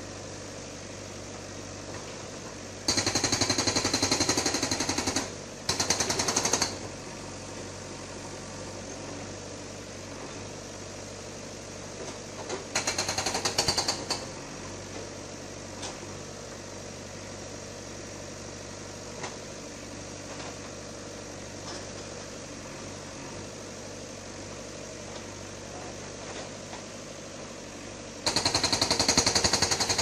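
JCB backhoe loader's hydraulic breaker hammering concrete in rapid bursts: four runs of fast blows, the longest starting about 3 s in and near the end. The diesel engine runs steadily underneath.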